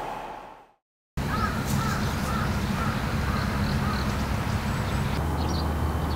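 The sound cuts out briefly about a second in. After that comes a steady outdoor background with birds calling in short repeated calls.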